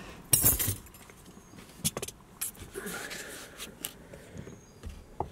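Handling noise inside a car: a loud rustle just under a second in, then scattered light clicks and knocks as the camera is moved and set in place.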